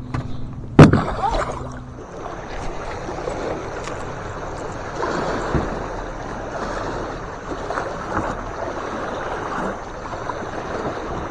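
River water sloshing and rushing around a small fishing boat, with a single sharp knock about a second in. A low steady hum cuts off about two seconds in.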